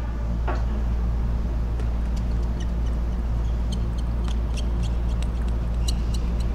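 Table tennis rally: a quick, irregular run of sharp clicks as the plastic ball strikes the rackets and the table, over a steady low hum, with a brief squeak near the start.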